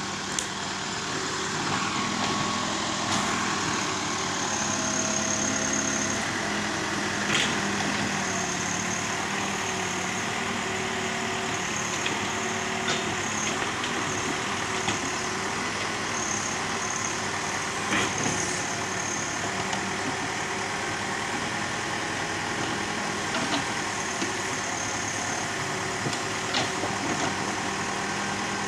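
Case 580 Super L backhoe loader's diesel engine running steadily as the bucket works, with a few sharp knocks about 7, 18 and 26 seconds in.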